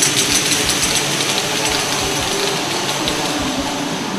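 Loud, steady mechanical whir with a hiss and a high whine running through it.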